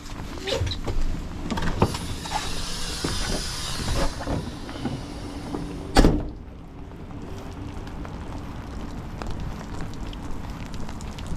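Delivery truck's door being worked: clatter and clicks, then one loud bang about six seconds in as it is shut, over a steady low hum.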